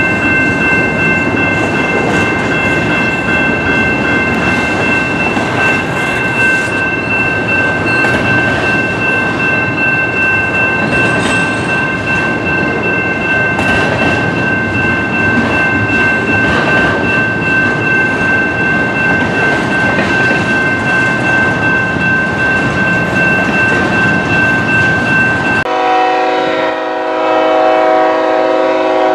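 Double-stack intermodal freight train rolling past: a dense rumble and clatter of wheels on rail with a steady high-pitched squeal over it. Near the end it gives way to a diesel locomotive's horn sounding a steady chord.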